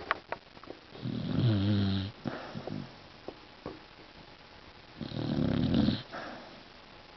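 A sleeping beagle snoring: two snores about four seconds apart, each lasting about a second.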